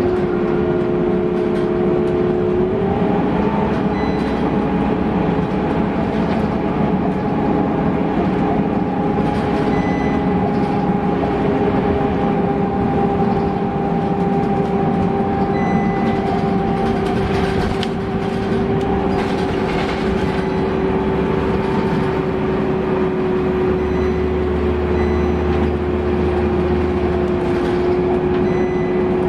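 Scania K230UB city bus driving at speed, heard from inside the passenger cabin: engine and ZF Ecomat automatic gearbox running with a steady drivetrain whine over road noise. The whine steps up in pitch about three seconds in, then slowly sinks as the bus cruises on.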